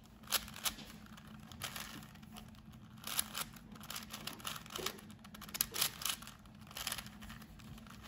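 Plastic layers of a stickerless 4x4 Rubik's cube clicking and scraping as they are turned, in several short irregular bursts of half turns: the 4x4 edge-parity algorithm that swaps two unsolved opposite edges on the last layer.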